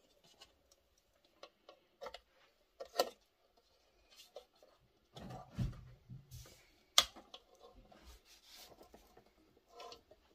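Steel surplus ammunition can being opened by hand: scattered small metallic clicks and scrapes as the wire ring and tear strip on its edge are worked. Sharp clinks about three seconds in and again near seven seconds, with a dull knock between them.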